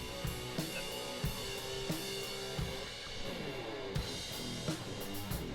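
Instrumental background music with a drum kit keeping a steady beat and guitar.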